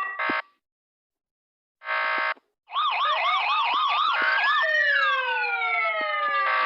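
Electronic vehicle siren unit (SGU) going through its signals. A falling wail dies away, and about two seconds in comes a short flat buzzing horn blast. Then a fast up-and-down yelp starts with a rising wail over it; the wail peaks, glides back down, and horn blasts return near the end.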